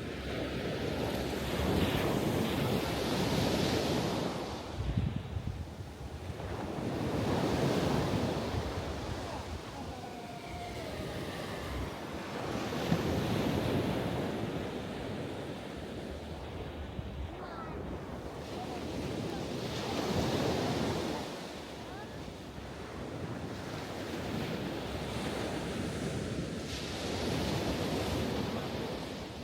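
Ocean waves breaking and washing onto the shore, the surf swelling and falling away every several seconds, with wind buffeting the microphone.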